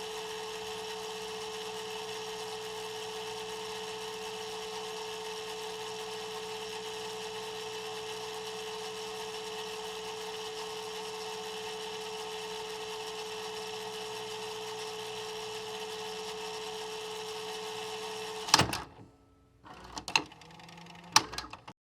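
VHS player rewinding a tape: a steady motor whir with a constant hum. Near the end, a loud clunk as the rewind completes, then a few mechanical clicks as the tape transport stops.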